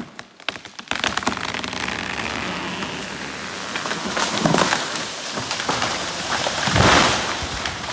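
A felled beech tree coming down: a few sharp cracks of breaking wood, then a long rushing swish of leaves and branches as its crown tears through the neighbouring trees, building to a heavy crash as it hits the ground about seven seconds in.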